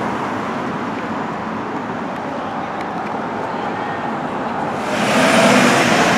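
Steady city street traffic noise. Near the end it grows louder as a flatbed tow truck drives past close by.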